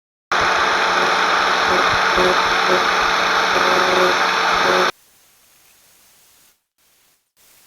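Power grinder running steadily, grinding down the protruding ends of plastic-welding staples set into a cracked plastic car bumper; it starts abruptly and cuts off after about four and a half seconds.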